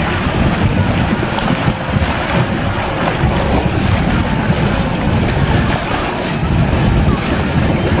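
Floodwater draining down a whirlpool vortex, a steady rushing of water, with wind buffeting the microphone.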